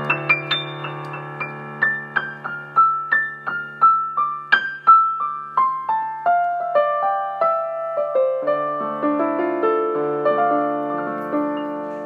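Slow solo piano music: single notes struck one after another over held low notes, the melody stepping downward from about five seconds in.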